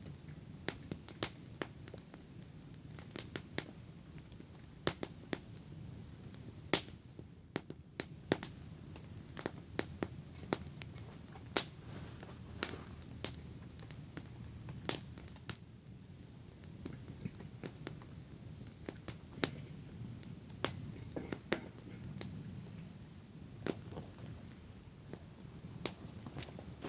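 Small wood campfire crackling, with sharp pops coming irregularly, a few a second, over a low steady background.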